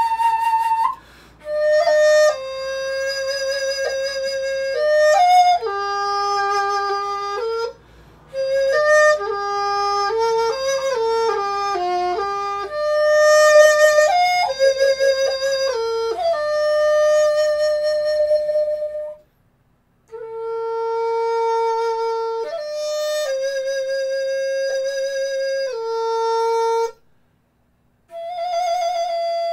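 A flute-type wind instrument playing a slow solo melody of held notes, in phrases separated by short breaks for breath.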